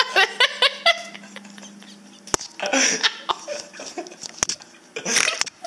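A person's high-pitched squeals and giggles in quick succession during the first second, then scattered bursts of laughter, with one sharp click about two seconds in.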